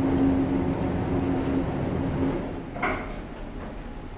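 A steady low hum fades out about halfway in. About three seconds in, the elevator gives a short knock, followed by a few light clicks from its door or call button.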